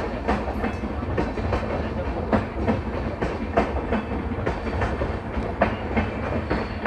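LHB passenger coaches of a departing express rolling past, the wheels clicking and knocking irregularly over rail joints and points over a steady low rumble.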